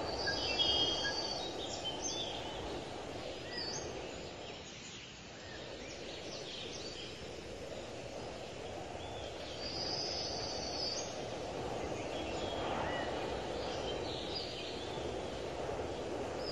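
Rural outdoor ambience: a steady low rushing noise, with small birds chirping and trilling in short bursts, busiest about a second in and again about ten seconds in.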